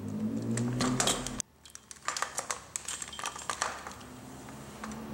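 Small metallic clicks, taps and clinks of hand tools against the aluminium tubes of a suitcase's telescoping handle as its plastic shims are worked at. The sound drops out abruptly about a second and a half in before the clicking starts.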